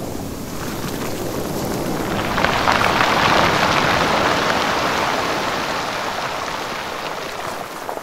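Sea surf on a rocky beach: a wave breaks with a hissing rush that swells about two seconds in, then slowly washes back and fades.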